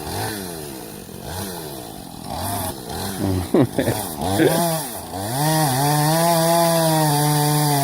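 Chainsaw cutting into a tree trunk. The engine revs rise and fall repeatedly, then from about five seconds in it is held at high, steady revs and gets louder.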